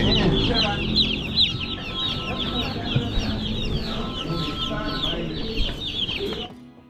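Many chickens calling at once: a dense chorus of short, high, overlapping chirps. It cuts off abruptly near the end.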